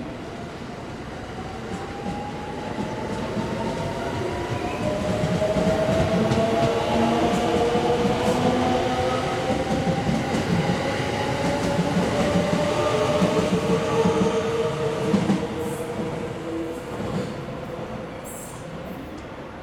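JR 683-series electric train pulling out, its traction motors whining with several tones that rise steadily in pitch as it gathers speed, over wheel and rail rumble with clacking. The sound grows louder as the cars pass, then fades as the train draws away.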